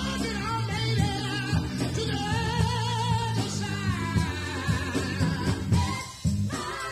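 Live gospel music: voices singing with vibrato over instrumental backing, with a brief drop in the music about six seconds in.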